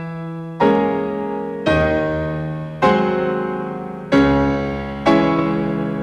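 Slow piano music: five chords struck about once a second, each left to ring and die away before the next.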